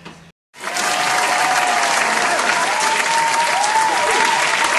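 Stock sound effect of a crowd applauding, with a few rising and falling whistle-like tones over the clapping; it starts suddenly about half a second in, after a brief gap of silence.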